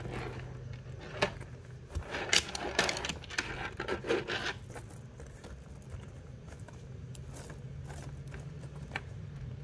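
Metal chain strap of a leather wallet-on-chain clinking and scraping against the pebbled leather as it is handled and tucked inside the wallet: a run of small clicks and rubs over the first four seconds or so, then only a single click near the end.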